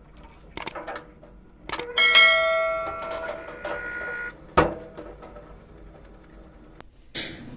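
Scattered clicks and knocks, with a bell-like ringing tone about two seconds in that fades over about two seconds and then cuts off.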